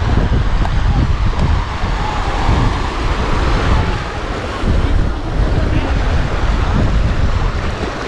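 Wind buffeting the microphone in a loud, uneven low rumble, over the wash of waves breaking on a sandy beach.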